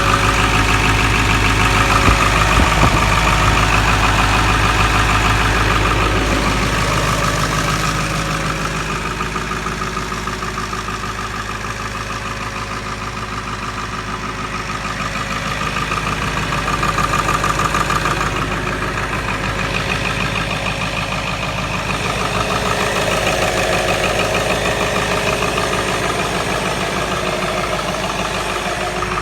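Vehicle engine idling steadily after a cold start, having sat unstarted for four weeks. Its sound eases off a little partway through, then comes back up.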